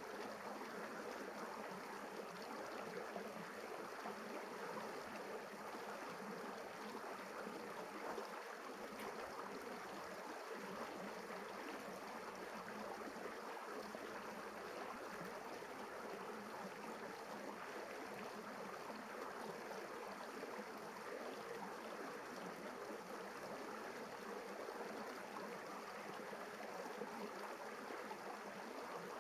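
Steady rush of shallow river rapids running over rock ledges.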